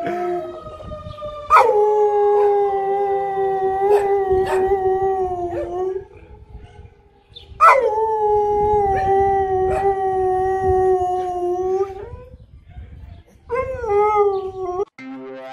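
Siberian husky howling: two long, drawn-out howls, each starting sharply and sinking slowly in pitch, then a shorter, wavering howl. Electronic music comes in near the end.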